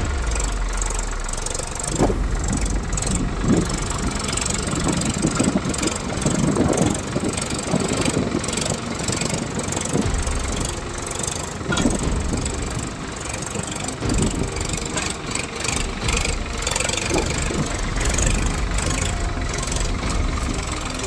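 Swaraj 742 XT tractor's three-cylinder diesel engine running steadily, with irregular knocks and clatter mixed in.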